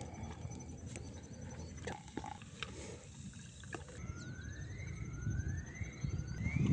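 Outdoor ambience with wind rumbling on the microphone and a few small handling clicks, then a bird calling in a series of rising whistles, about one a second, in the second half. A heavy low thump comes right at the end.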